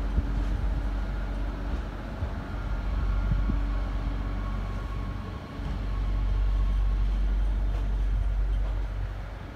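Double-deck regional electric train coming into the station: a steady low rumble with a faint electric whine in the middle seconds.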